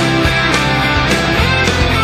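Loud rock music with electric guitar and a steady drum beat.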